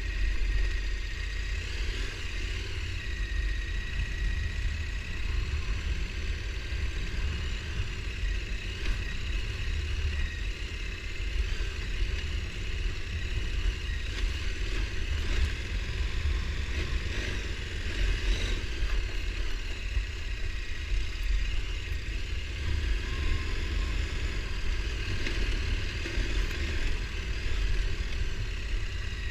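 ATV engine running steadily while riding a trail, a continuous deep rumble that rises and falls a little without stopping.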